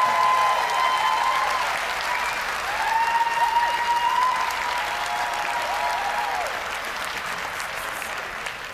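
Large arena audience applauding, with high held cheers and whoops over the clapping. It gradually dies down near the end.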